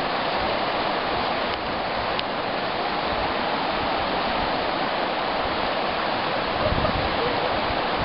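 Fast mountain river rushing over rocks in whitewater rapids, a steady, even roar of water.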